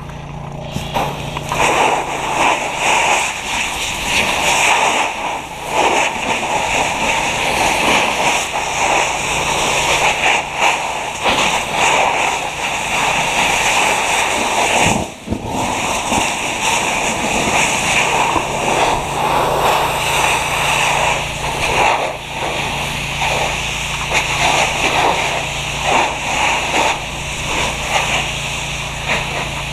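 Fire hose stream spraying onto a burning car: a loud, steady rush of water spray and splashing, with a short break about halfway through. A steady low hum runs underneath.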